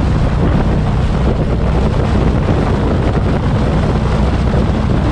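Motorcycle engine running at a steady cruising speed, buried under heavy wind buffeting on the microphone. A constant low rumble and rushing noise hold without change.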